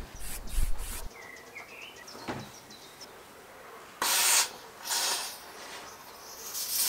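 Aerosol can of expanding polyurethane foam hissing as it dispenses, in short spurts: a sharp burst about four seconds in, a second just after, and another building near the end. A bird chirps faintly before the spurts.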